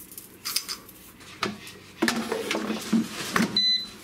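Plastic basket of a Cook's Essentials digital air fryer knocking and clunking as it is handled and slid back into the unit, followed near the end by one short electronic beep from the air fryer as its display lights up.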